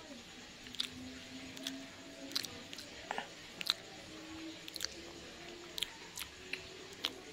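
Close-miked chewing of soft, sticky sapin-sapin (layered glutinous rice cake), with sharp wet mouth clicks about every half second to second.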